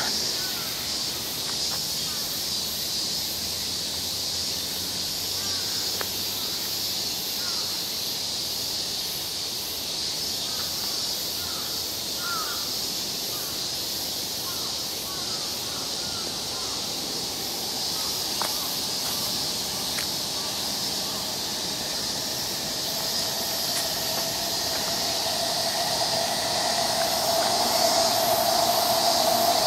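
Daytime summer chorus of cicadas: a steady, high, pulsing buzz. A few short bird chirps sound in the middle, and a lower steady hum grows louder near the end.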